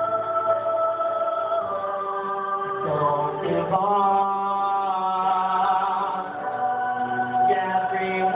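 Show choir singing long held chords in several parts, moving to a new chord about three to four seconds in.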